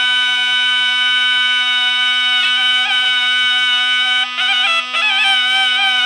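Two zurnas playing a bozlak: one holds a steady low drone while the other sustains a long, piercing note for the first couple of seconds, then breaks into quick ornamented turns with brief breaks.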